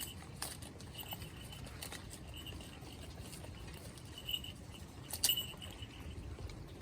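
Sheep moving about on the ground: scattered sharp clicks and light patter, with a faint high ringing tone that comes and goes through the middle.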